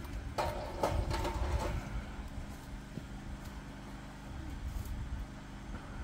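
Electric motor of a homemade bandsaw-blade sharpener running with a steady hum, and a louder rough grinding burst lasting about a second, starting about half a second in, as the wheel works a sawmill band-blade tooth.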